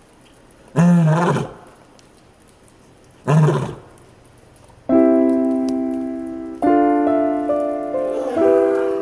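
A lion roaring: two short, loud roar calls about two and a half seconds apart. Piano music starts about five seconds in and carries on.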